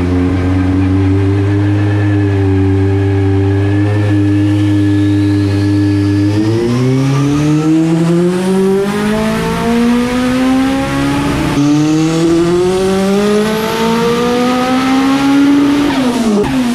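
Turbocharged Honda Prelude H22 four-cylinder engine on a dyno pull. It runs at a steady speed for about six seconds, then revs climb steadily under load for about ten seconds with a high whine rising along with them. Near the end the throttle closes and the revs fall away sharply.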